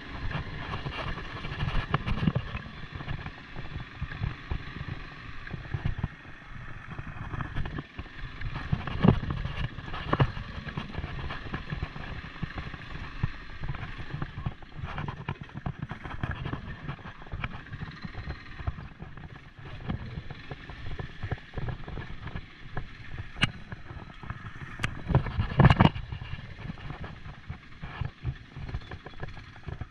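Quad bike (ATV) engine running as it is ridden over a rough dirt track, with irregular knocks and rattles. The loudest jolts come about nine seconds in and again near the end.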